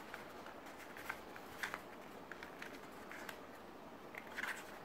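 Faint rustling and light taps of a stiff black card-stock envelope being handled and folded open, in a scatter of short, soft clicks.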